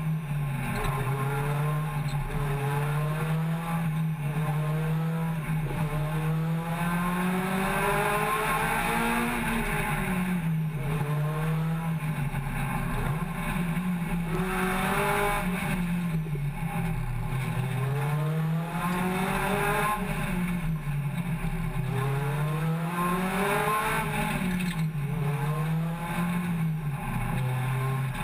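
Race-prepared hot hatchback's engine heard from inside the cabin on a fast warm-up lap, its note rising and falling over and over as the driver accelerates and lifts through the corners, over a steady haze of road and wind noise.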